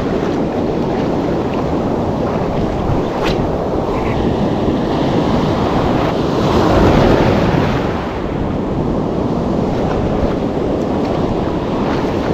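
Surf washing onto the beach, with wind buffeting the microphone; a wave swells and breaks, loudest about seven seconds in. A single sharp click comes about three seconds in.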